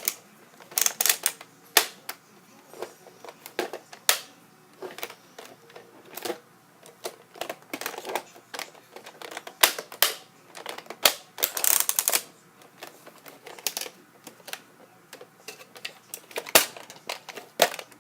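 Plastic clicks and clacks of a Nerf shotgun-style toy blaster being worked and handled by hand, irregular and in small clusters, as it is checked for a jammed dart.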